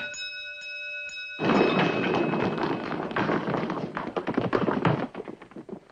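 A ringing tone hangs and fades. About a second and a half in, a din of clattering, thumping and banging breaks out from studio sound-effects men working their noise-making props, then trails off near the end.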